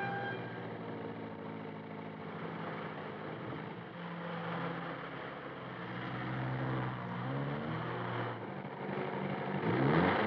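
Open two-seat sports car's engine running as it is driven, its pitch rising and falling a few times, with a louder swell of engine noise near the end.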